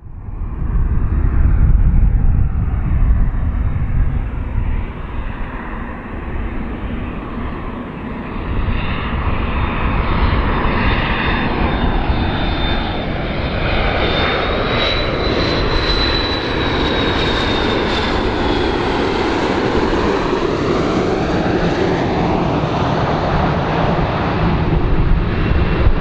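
Airplane engines during a pass: a loud, continuous rumble with a high whine that rises and then falls away about two-thirds of the way through.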